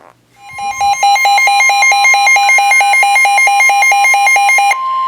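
Weather radio alert tones. A steady, loud 1050 Hz NOAA Weather Radio warning alarm tone comes on about half a second in. Over it, a receiver's rapid two-pitch alarm beeping stops a little before the end. Together they announce an incoming severe thunderstorm warning.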